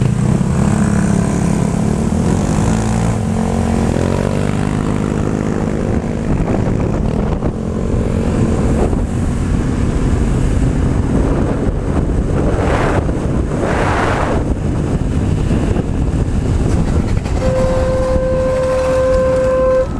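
Honda Click 125i scooter's single-cylinder engine pulling away, its pitch rising about three to four seconds in, then heavy wind rush over the microphone at riding speed. Near the end a horn sounds one long steady note.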